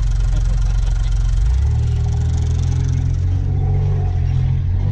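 Mitsubishi Pajero's engine running, heard from inside the cabin as a deep, steady drone. Its note changes about one and a half seconds in.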